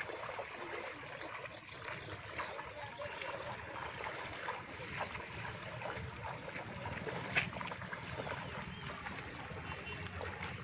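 Water sloshing and splashing as people wade through shallow floodwater, with many small splashes and one sharper splash about seven seconds in.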